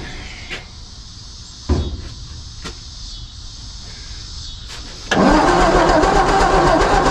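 1954 Ford F250's engine being cranked over by its starter motor without catching: it turns over steadily but does not fire, because the ignition is giving no spark. Before the cranking, about five seconds in, there are a few faint clicks and a thump.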